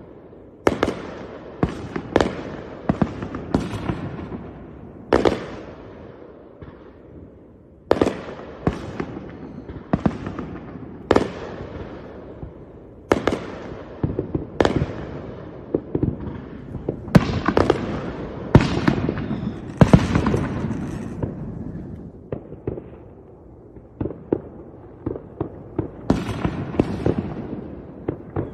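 Fireworks going off: a continuous, irregular string of sharp bangs and cracks, each followed by a fading crackle, with a short lull a few seconds in.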